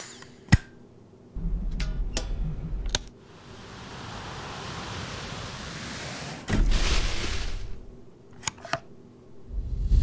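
Sharp plastic clicks and a low rumble from a Dyson Big Ball cylinder vacuum cleaner being handled. Then a hiss that swells and gives way to a brief loud rush as the clear bin empties its debris, and two more quick clicks near the end.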